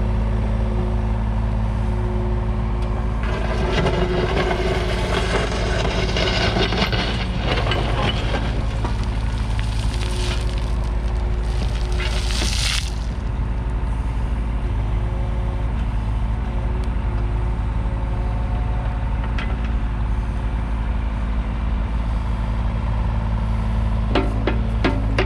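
2021 John Deere 35G mini excavator's diesel engine running steadily while the bucket digs into a pile of gravelly soil, with crunching and scraping from about three seconds in. Around twelve seconds in, a short loud rush as dirt pours out of the bucket, and a few sharp knocks near the end.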